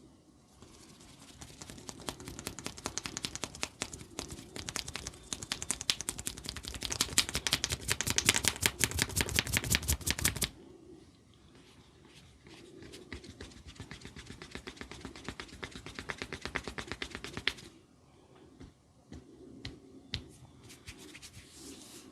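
A barber's hands tapping rapidly on a head during a head massage: a fast run of strikes that grows louder and stops abruptly about ten seconds in, then a second, softer run, then a few scattered taps.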